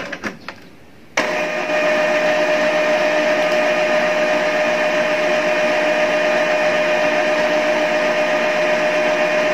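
Epson L3153 EcoTank inkjet printer starting its first-time ink charge: a few light clicks, then about a second in its mechanism starts with a sudden, steady mechanical whir carrying a constant hum tone.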